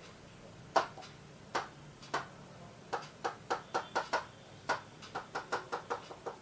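Taps on the glass screen of an interactive display board while drawing on it: a few sharp, irregular taps at first, coming quicker from about three seconds in.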